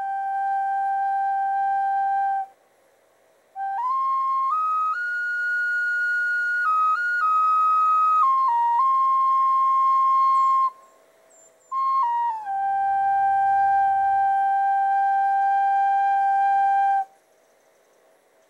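Flute playing a slow melody of long held notes in three phrases separated by short pauses. The first and last phrases hold a single low note, while the middle phrase climbs step by step to higher notes and comes back down.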